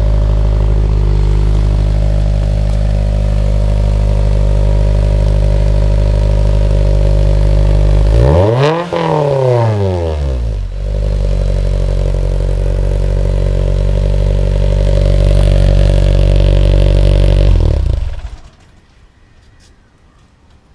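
Honda S2000's inline-four idling through a newly fitted exhaust, revved once about eight seconds in, the pitch climbing and falling back to idle, then idling again until the engine is switched off near the end.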